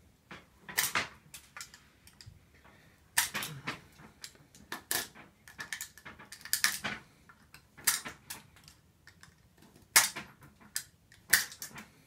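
Utility knife blade scraping and shaving the outer plastic jacket off a 48-fiber optic cable, in irregular short strokes with sharp clicks, working down to the metal armor jacket beneath.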